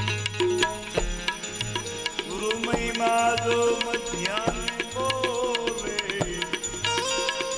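Devotional bhajan music in an instrumental passage: a tabla beat under a melody line with sliding, bending notes.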